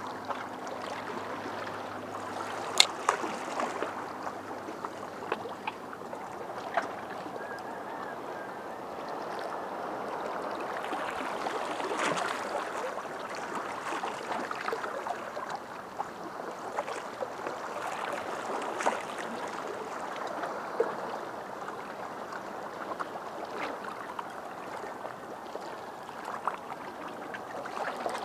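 Small waves lapping and gurgling at the water's edge in a steady wash, with scattered sharp clicks, the loudest about three seconds in.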